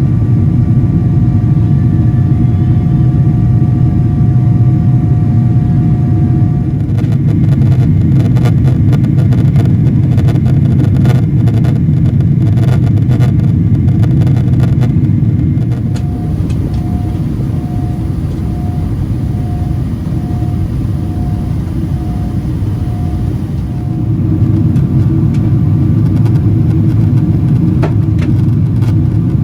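Loud, steady rumble inside the cabin of a Boeing 777-300ER, from its GE90-115B engines and the airflow. A run of rattling clicks comes through in the middle, and the noise eases for several seconds about two thirds of the way in before rising again.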